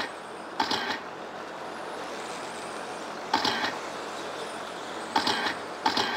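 Electric RC stadium trucks with 13.5-turn brushless motors racing on a dirt oval: four short bursts of motor and tyre noise as trucks pass close, over a steady background hum.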